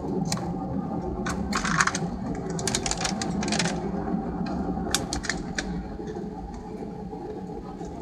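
Airbus A320 cabin noise while taxiing: the engines' steady low hum. A rapid cluster of light clicks and rattles sounds from about a second in to nearly four seconds, then a few scattered clicks.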